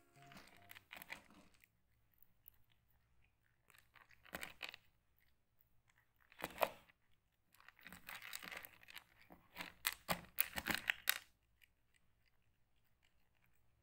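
Cat chewing dry kibble, crunching in short bursts a second or two apart with quiet pauses between, loudest about two thirds of the way in.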